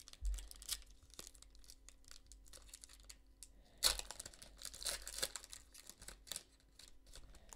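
A trading card pack wrapper being torn open and crinkled by hand: scattered crackles, with a louder stretch of ripping and crinkling about four seconds in.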